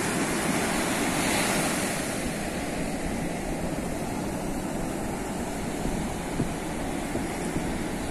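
Ocean surf breaking and washing up a sandy beach: a steady rushing wash of waves that swells a little about a second in.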